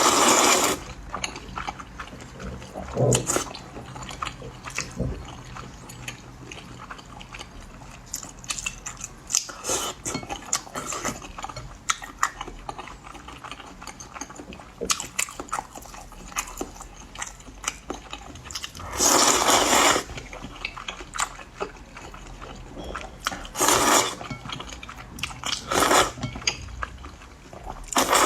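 A person eating potato noodles close to the microphone: loud wet slurps every few seconds, the longest lasting about a second, with chewing and small wet mouth clicks in between.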